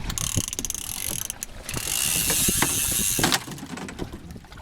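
Fishing reel's ratchet clicking very fast and high in two long runs, with a short break between them.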